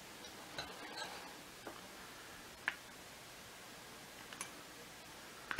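Scattered small plastic clicks and taps as hands work the plastic motor housing of a Miele Trifle HX1 Pro vacuum, then one loud sharp snap near the end as the prised-apart housing clip gives.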